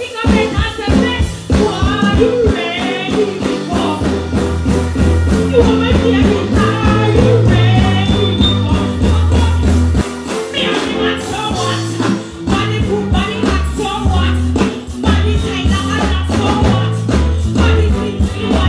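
Live stage performance: a female artist singing and deejaying into a microphone over a loud backing track with a heavy bass line and beat, played through a concert PA. The bass drops out briefly about ten seconds in.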